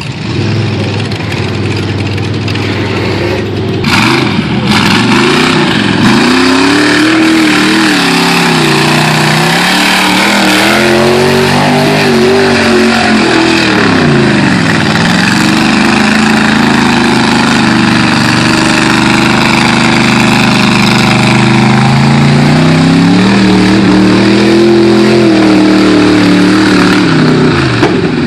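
Suzuki Samurai mud truck with a swapped-in Chevy V8 revving hard through a mud bog pit. The engine pitch climbs and drops several times, holds high for several seconds through the middle, then rises once more and falls away near the end.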